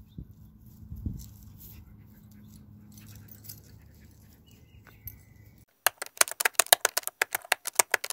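Rapid keyboard-typing clicks, a sound effect, come in loud and irregular about six seconds in. Before that there is only a faint background with a low hum and a few soft knocks.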